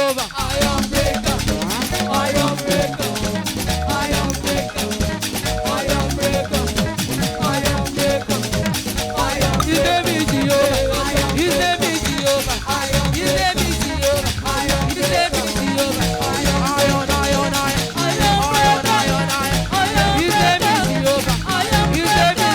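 Upbeat live praise music from a church band and choir: singing over a steady, driving beat with bass and percussion.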